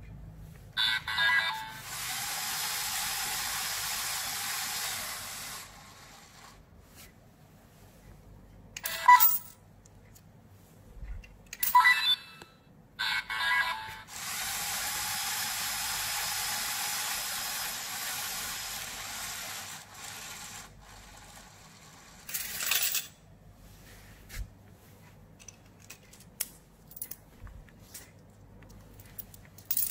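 LEGO Mindstorms EV3 slot machine in play: short electronic beeps from the EV3 brick and two stretches of steady whirring hiss, each several seconds long, as the reels spin, with a sharp burst of sound near the end.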